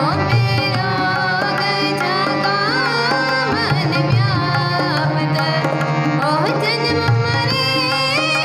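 Sikh kirtan: girls' voices singing a hymn to two harmoniums, the reeds sustaining chords beneath the melody, with tabla played along, the low bass drum thumping under it.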